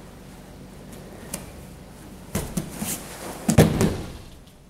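A judo uchimata throw: a few quick scuffs and steps on the mat, then a heavy thud about three and a half seconds in as the thrown partner lands on the judo mat.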